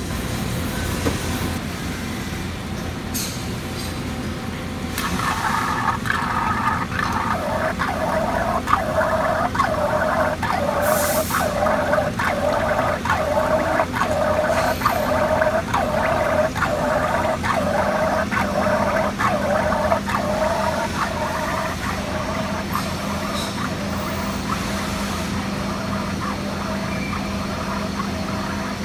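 Mitsubishi EA8 sinker EDM machining with its electrode submerged in the dielectric tank: a steady machine noise with gurgling from the fluid. From about five seconds in, a regular pulsing comes in at about one and a half beats a second and fades away near the end.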